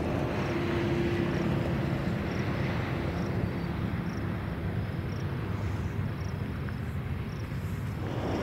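Loaded ballast hopper cars of a long freight train rolling past, a low steady rumble of steel wheels on rail.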